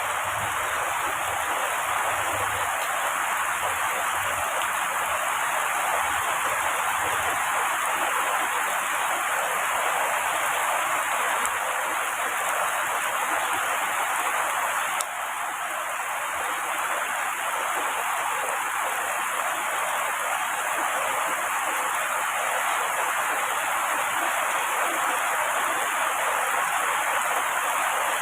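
Heavy rain falling steadily on tree foliage, an even, unbroken hiss with a brief small dip in level about halfway through.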